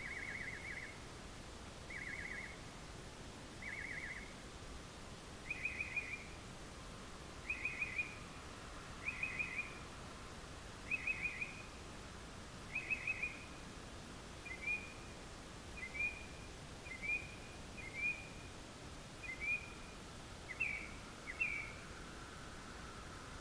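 An unidentified bird calling at night: short rapid trills of four or five quick notes, repeated every second and a half to two seconds. About halfway through, the calls change to shorter single or paired chirps, over a faint steady hiss.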